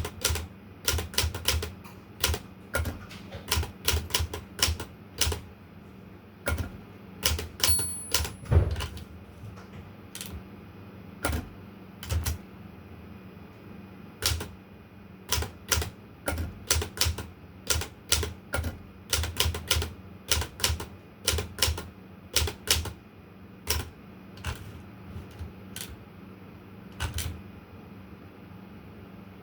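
Olympia Traveller de Luxe portable manual typewriter being typed on: irregular runs of sharp key strikes with short pauses. About eight seconds in comes a brief ring, the end-of-line margin bell, followed by a heavier clunk. The typing stops a couple of seconds before the end.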